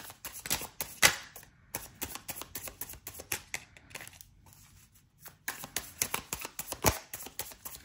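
A deck of tarot cards being shuffled by hand, the cards rustling and slapping together in quick, uneven clicks, with a quieter pause about four seconds in.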